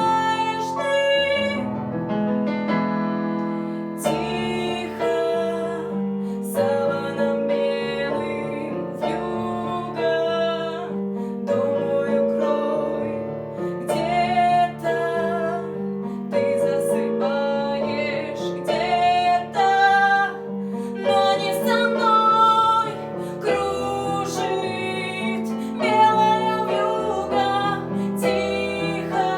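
A slow song with keyboard accompaniment and a female voice singing a wavering melody line.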